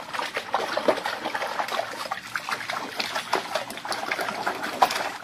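Water splashing and trickling in a dense, irregular run of small splashes.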